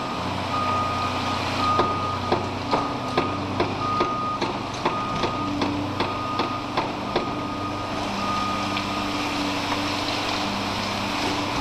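Heavy excavator diesel engines running, their pitch shifting now and then, with a backup alarm beeping on and off throughout. In the first half, about a dozen evenly spaced sharp knocks come a little over two a second.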